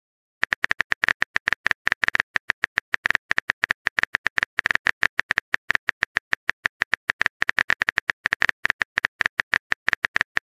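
Phone keyboard typing sound effect: a rapid, uneven run of short clicks, about eight a second, starting about half a second in.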